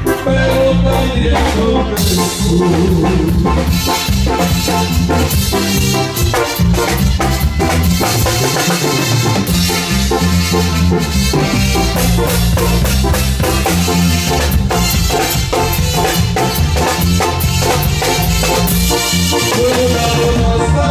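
Live Latin dance music from a band with a keyboard, played loud through PA speakers, with a steady drum beat over a moving bass line.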